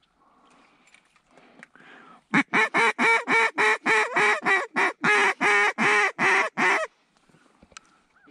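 A duck call blown to imitate a mallard hen: a loud, fast run of about twenty quacks, roughly four a second, starting about two seconds in and lasting some four and a half seconds, used to call an approaching flock of ducks in to the decoys.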